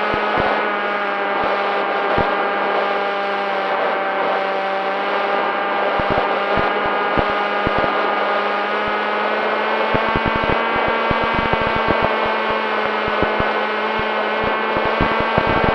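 Electric motor and propeller of an FX-61 flying wing running at a steady whine in flight, with short crackles and knocks scattered through it that grow more frequent from about ten seconds in.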